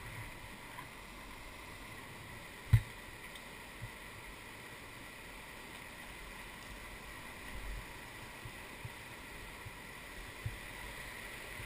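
Steady rush of whitewater river current around a moving kayak. About three seconds in comes a single sharp knock, the loudest sound, with a couple of lighter knocks later.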